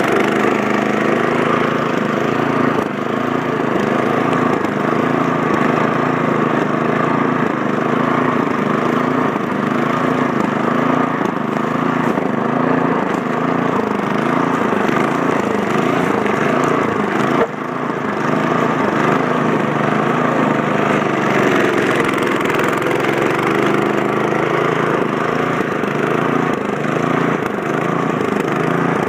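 Snowblower's small gasoline engine running steadily, its pitch wavering slightly, with one short click and brief dip in level a little past halfway.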